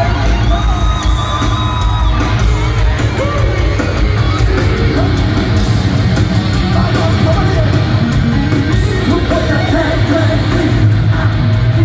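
Live hard rock band playing loudly, with electric guitar and drums, singing and yelling.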